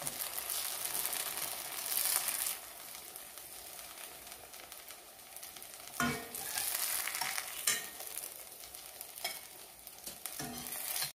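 Cauliflower patties sizzling as they fry in oil in a stainless steel pan, with a metal spatula and spoon clicking and scraping against the pan a few times in the second half as the patties are lifted out.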